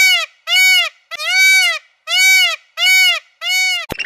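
Waterfowl honking: about six clear, evenly paced honks, each rising and falling in pitch, with a sharp click just before the end.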